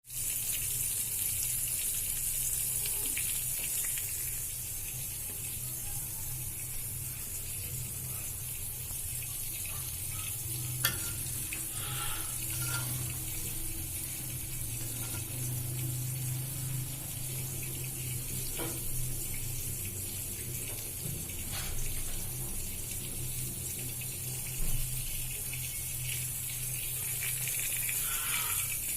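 Steady hiss of running water with a low hum underneath, broken by a few light clicks and knocks.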